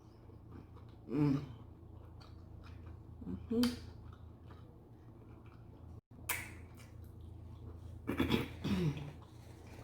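A person eating makes a few short throat sounds and murmurs: one about a second in, another a couple of seconds later, and a longer run near the end, over a steady low hum.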